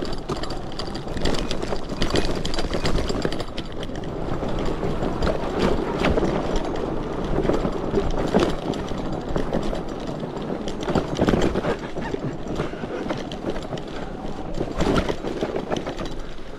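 Fat-tire electric bike riding over a rough dirt trail: the tyres rumble over the ground while the bike rattles and knocks over bumps.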